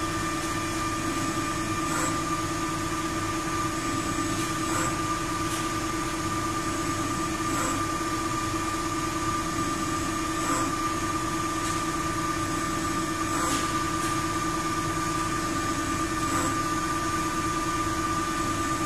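Ajax Fel 1760 CNC lathe running its thread-cutting program: a steady motor and drive hum with a whine from the 7.5 hp spindle drive, and a faint click about every three seconds.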